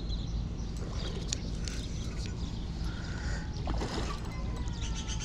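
A hooked carp splashing and thrashing at the water's surface about four seconds in, over a steady low rumble of wind on the microphone.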